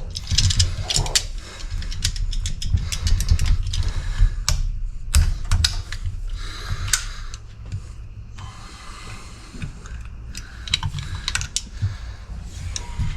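Metal hand tools clinking and clicking against a tractor hydraulic valve body as it is being taken apart: many irregular sharp clicks and knocks, over a low steady hum.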